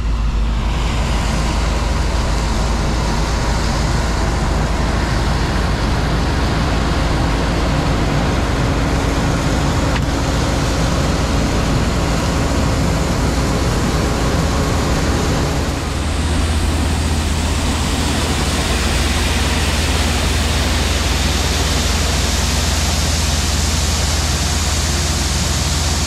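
Steady farm machinery noise as a tractor with a grain cart and a Case IH combine work beside the grain truck. About sixteen seconds in, it changes to a steady rush of shelled corn pouring from the grain truck's tailgate into a King grain auger's hopper, over a low hum of running machinery.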